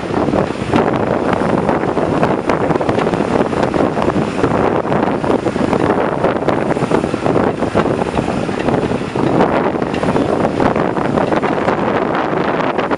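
Heavy wind buffeting the microphone from the window of a moving bus, steady and gusting, with the bus's road noise underneath.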